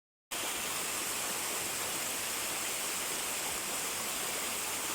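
Steady rush of spring water flowing, an even hiss with no breaks, beginning a moment after the start.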